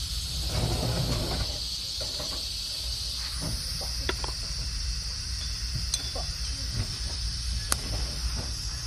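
TIG welding torch at a steel pipe: a steady hiss with a few sharp clicks, then a loud crack about three-quarters of the way in as the arc strikes.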